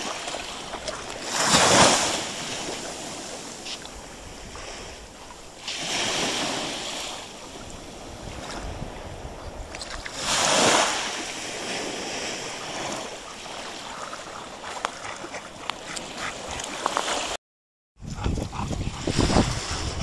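Small sea waves washing and breaking in the shallows, swelling up three times, with wind buffeting the microphone. Near the end, light splashing as Bernese Mountain Dogs wade, after the sound cuts out for a moment.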